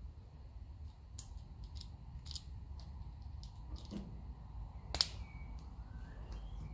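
A handful of light clicks and taps from handling metal parts and tools, the sharpest about five seconds in, over a low steady hum.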